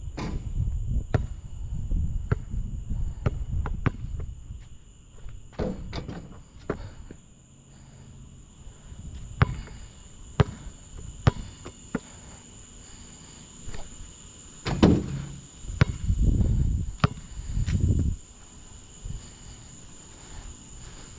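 Basketball bouncing on a hard court, with sharp bounces about once a second, and crickets chirring steadily. A cluster of louder thuds and scuffs comes about two-thirds of the way through.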